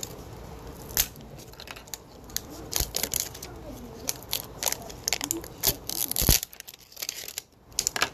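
Wrapper being peeled and torn off a toy ball by hand: irregular crinkling and tearing crackles, the loudest about six seconds in.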